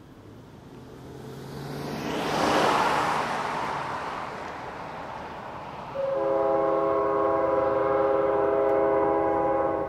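A car passes on the road, a rush of tyre noise that rises and fades over the first few seconds. About six seconds in, a diesel locomotive's multi-chime air horn sounds one long chord for about four seconds, then stops: the horn of CSX ES40DC 5476 leading a northbound train on its approach.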